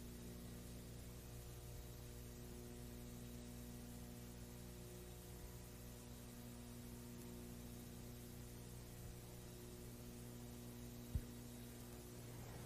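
Faint steady electrical mains hum on the audio track, a stack of constant low tones with light hiss, and one short click about eleven seconds in.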